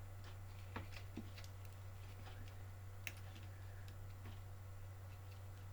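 Faint, scattered small clicks and ticks from handling the wiring and plastic parts of an RC car's electrics while routing the wires, over a steady low hum.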